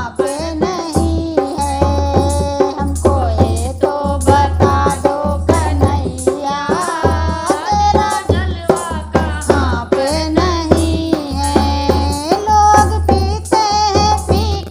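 Hindi devotional bhajan to Krishna: a sung melody over a steady percussion beat with heavy, pulsing bass.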